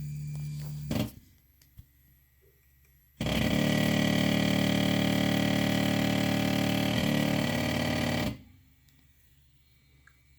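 Tevo Tornado 3D printer's Z-axis stepper motors running: a steady low hum cuts off about a second in, then about three seconds in a loud, even, many-toned motor whine starts, runs for about five seconds, and stops abruptly.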